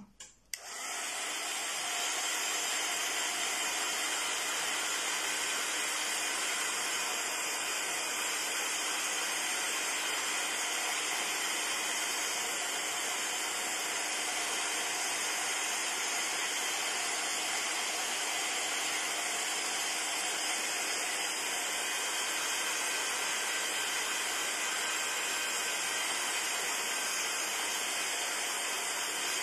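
Electric craft heat tool (embossing heat gun) switching on and running steadily, a continuous rush of hot air used to dry a wet layer of black gesso. It starts about half a second in and reaches full strength within a second.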